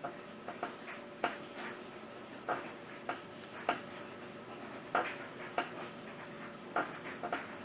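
Irregular light clicks and taps, one or two a second, from hand work on small metal parts, over a steady hum.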